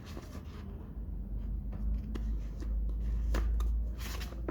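Hands handling a product box and its packaging: rustling and scraping with scattered sharp clicks and knocks, over a low handling rumble that swells through the middle.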